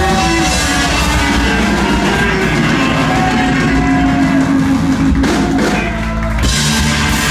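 Ska band playing live: electric guitars, bass and drum kit, with a held note in the middle and a brief break about six seconds in before the full band comes back.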